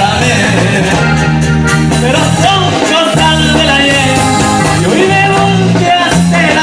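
A band playing Latin American music at a sound check, with a steady stepping bass line under a wavering melodic lead.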